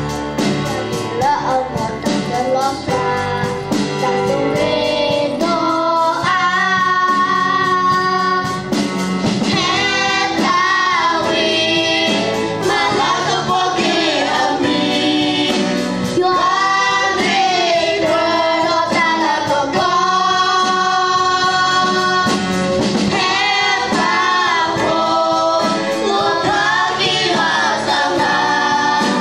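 A church choir of children and young women singing a hymn together, a female voice on microphone leading, with live guitar-band accompaniment.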